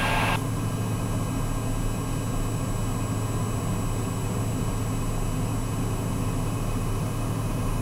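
Socata TBM 910's Pratt & Whitney PT6A turboprop running steadily at low power, heard inside the cockpit: a constant low hum with a few thin, steady high tones above it. A short burst of hiss comes at the very start.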